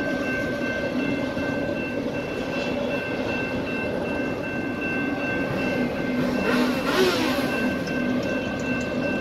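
Freight train of autorack cars rolling through a grade crossing: a steady rumble of wheels on rail. Over it the crossing's electronic bell keeps ringing. About seven seconds in comes a brief louder rush with a falling pitch.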